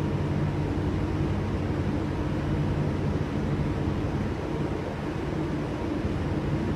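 Steady low drone of diesel boat engines under a constant hiss of spray and wind.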